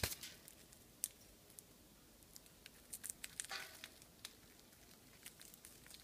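Faint, scattered clicks and taps of green-cheeked conures' beaks and feet on metal cage bars and food, with a brief rustle about three and a half seconds in.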